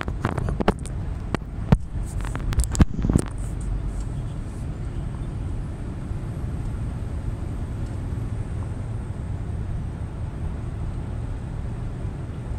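Scania truck driving at road speed, heard from inside the cab: a steady low drone of engine and tyres. A few sharp clicks and knocks come in the first three seconds.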